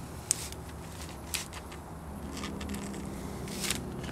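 Pre-mask being peeled slowly off a wet-applied vinyl window decal, giving scattered crackles and ticks as the sheet lifts away from the glass, the sharpest about a third of a second in.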